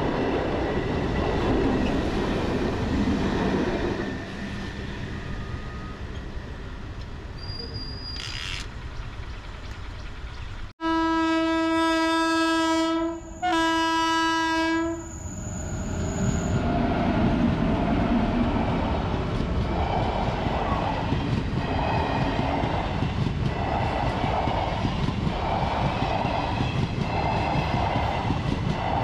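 Passenger train coaches running past on the track close by, easing off after a few seconds. Then a locomotive horn sounds two long blasts, and a second passenger train comes up and passes with a steady wheel clatter, about one clack a second.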